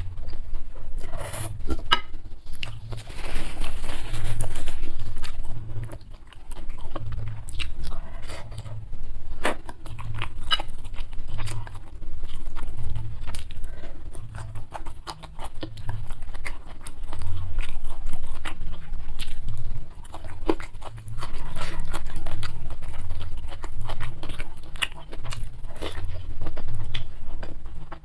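Close-miked eating sounds: steady chewing with wet mouth noises and occasional crunchy bites, at a chewing rhythm of roughly one stroke a second.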